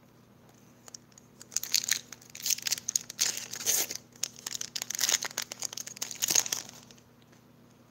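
Foil wrapper of a Pokémon trading-card booster pack being torn open and crinkled: a run of crackling rustles that starts about a second and a half in and dies away near the end.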